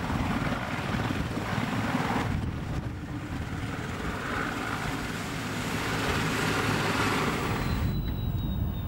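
CH-53 heavy transport helicopter of the German Army running on the ground just after touching down, its main rotor beating steadily. The sound cuts off abruptly near the end, leaving a fainter background with a thin high whine that slowly falls in pitch.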